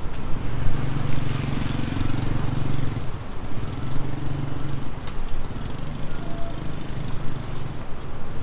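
Road traffic passing close by: cars and motorcycles running past, with a steady engine drone that is strongest over the first three seconds and eases off after about five.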